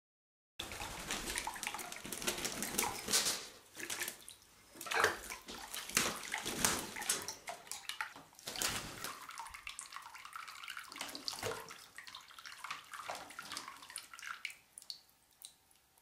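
African grey parrot splashing in a water-filled sink, beating its wings in the water: irregular splashes and sloshing starting about half a second in, dying away near the end.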